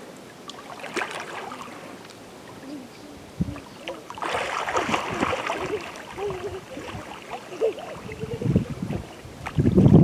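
Water splashing and sloshing around swimmers, with a burst of splashing about four seconds in and more near the end.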